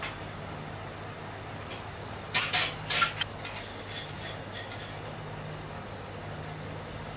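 A quick cluster of sharp metallic clinks and clanks about two and a half to three seconds in, from metal parts of an industrial sewing-machine stand being handled and fitted during assembly, over a steady low hum.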